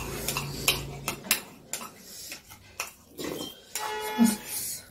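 Metal spoons clicking and scraping against ceramic bowls of soupy atta kaudi as two people eat. A low hum in the first second, and a drawn-out slurp from a spoon near the end.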